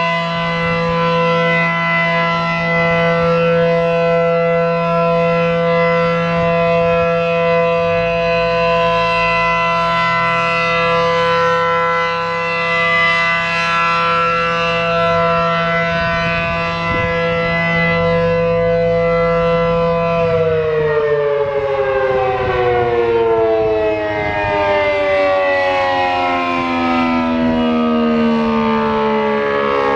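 A.C.A. P-10 rotating outdoor warning siren, reverse-wired and fitted with a cylindrical intake, sounding a steady alert tone. About two-thirds of the way through it cuts off and winds down, its pitch falling steadily as the rotor coasts.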